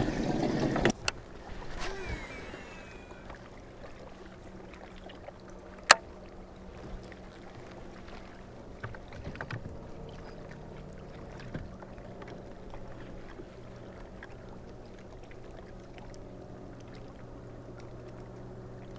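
Steady low hum of an electric motor on a bass boat, with a single sharp click about six seconds in and a few faint knocks.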